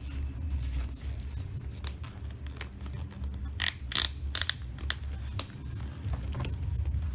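Scattered clicks and short scrapes from an inline skate's strap and buckle being handled, over a low rumble of handling noise.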